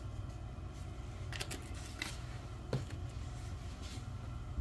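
Onion powder shaken from a plastic seasoning shaker and the shaker handled: a few soft clicks and rattles over a steady low hum.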